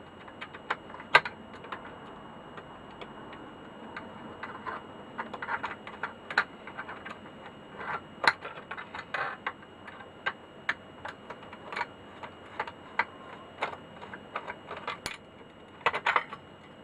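Irregular small clicks and taps of hand tools and small metal parts being worked as an aluminium plate is taken out of a gamma dosemeter's case, a few sharper knocks among them.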